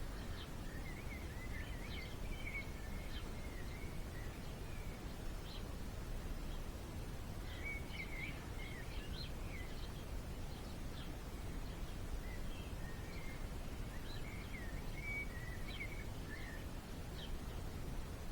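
Small songbird twittering in three bouts of quick high chirps, over a steady low background rumble.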